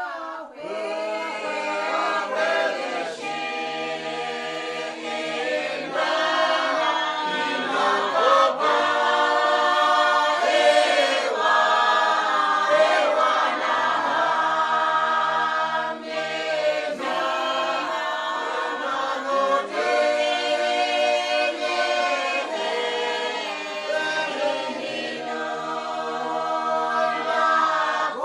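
A choir singing a cappella, many voices together with no instruments.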